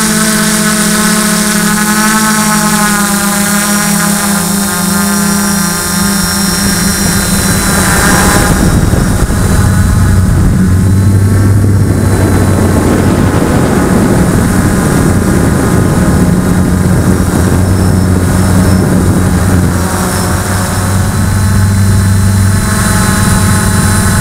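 Electric motors and propellers of a multirotor drone, heard through its onboard camera: a steady whine whose pitch wavers with the throttle. From about a third of the way in, a louder rush of air noise with a low hum takes over, and the whine comes back near the end.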